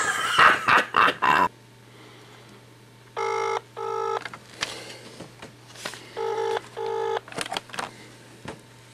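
Telephone ringback tone heard down the line as an outgoing call rings unanswered. It is the double-ring kind, two short buzzes close together, heard twice about three seconds apart over a faint steady hum.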